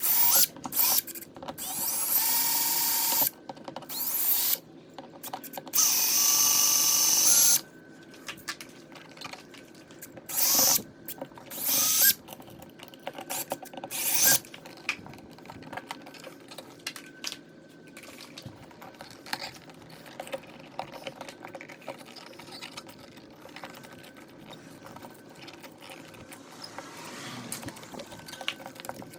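Power drill-driver running in short bursts, two of them about a second and a half long and several shorter ones, as the old light switch's screws are backed out; fainter handling clatter follows.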